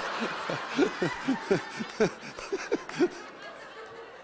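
Congregation laughing at a joke in the sermon, several voices chuckling together and dying away over the last second or so.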